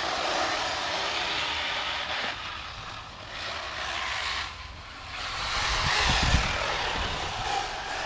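Electric off-road RC trucks racing on a dirt track: the rush of their motors and tyres swells and fades as they pass, dipping twice, with low thumps about six seconds in.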